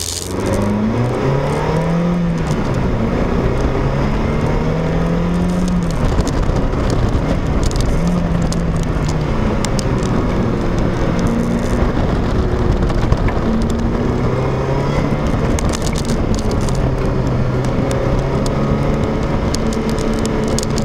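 Car engine heard from inside the cabin during a hard lap on a track. Its pitch climbs and drops several times as the car speeds up and slows for corners, over a constant rush of road and wind noise.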